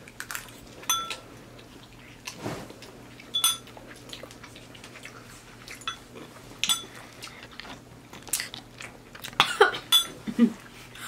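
Two people eating noodles: chewing, with scattered sharp clinks of a fork and chopsticks against ceramic bowls, some ringing briefly.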